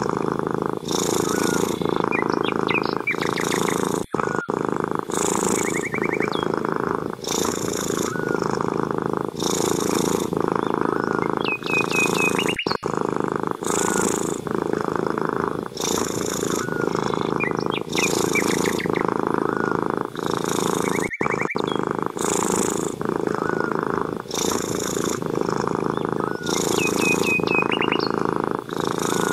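Cat purring steadily, swelling and easing about every two seconds with its breaths. Small birds chirp faintly now and then.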